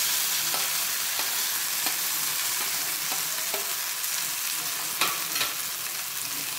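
Ground soya chunk paste frying in a little hot oil in a black kadai, a steady sizzle. A metal spoon clicks and scrapes now and then, sharpest about five seconds in.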